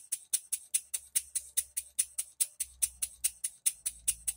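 Single-cylinder bar-stock model engine running on compressed air, throttled back slightly, its exhaust giving sharp, even puffs about five times a second.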